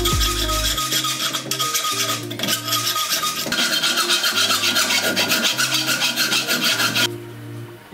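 Hand files rasping on steel in quick back-and-forth strokes, a round file and then a flat file working the drilled holes of a steel angle bracket into a slot. The filing stops abruptly near the end, leaving background music.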